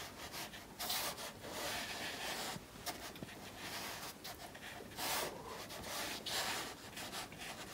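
A flat watercolour brush rubbing across watercolour paper in several separate strokes, each a soft hiss of bristles on paper.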